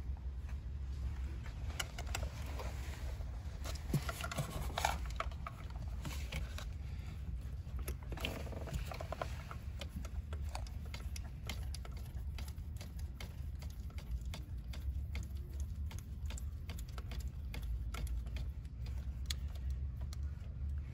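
Small metallic clicks and taps of hand tools and bolts being worked by hand on an engine, over a steady low hum.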